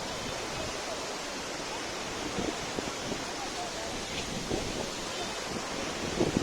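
Steady rush of flowing water, an even noise without pause.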